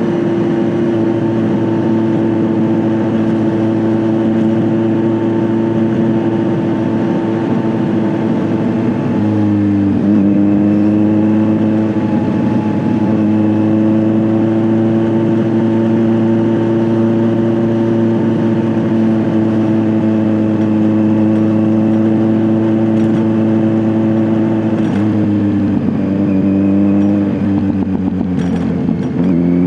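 Kawasaki Z900's inline four-cylinder engine through an SC-Project S1 aftermarket exhaust, running at a steady cruise under way. The engine pitch dips and climbs back about ten seconds in, and again twice near the end.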